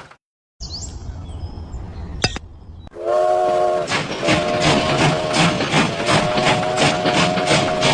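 Steam train sounds: a chorded whistle blows about three seconds in, then a steady chuff-chuff beat at about two and a half strokes a second runs under a held whistle tone. Before the whistle there is a low hum and a single click.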